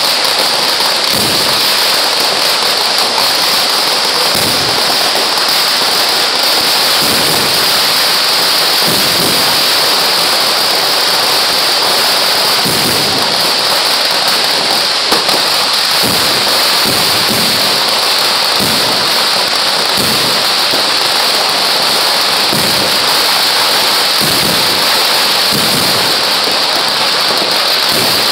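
Dense, unbroken crackle of a fireworks barrage, with firecrackers exploding too fast to count, loud and steady like heavy rain. Deeper booms break through every second or few.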